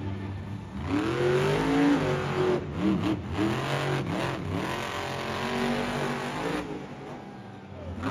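Earth Shaker monster truck's supercharged V8 revving up and down as the driver works the throttle, with several quick blips in the middle and a steadier, lower running near the end.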